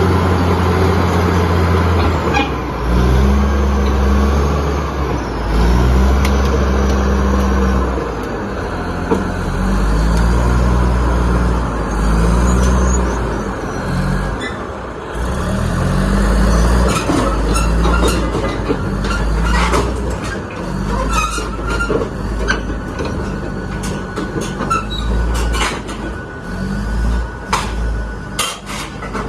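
Cummins diesel engine of an SD32 crawler bulldozer running, its low note rising and falling every second or two as the load changes. Sharp metallic clanks come in more often during the second half.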